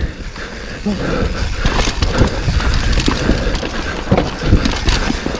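Mountain bike on a rough, slippery trail: irregular knocks, thuds and rattles over a steady low rumble.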